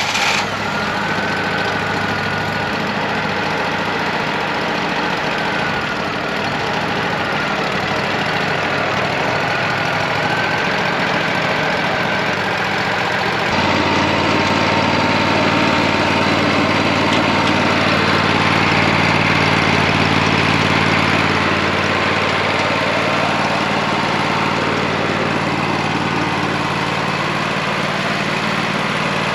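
Wood-Mizer LT40 sawmill's engine running steadily just after being restarted with a newly fitted O2 sensor. Its note gets a little louder and deeper about halfway through.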